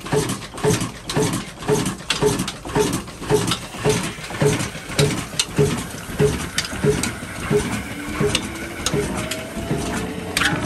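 Old 22 HP single-cylinder black oil engine running under load, with a slow, heavy beat of about two a second that eases slightly. After about eight seconds the beat fades into a steadier running sound with a faint rising whine.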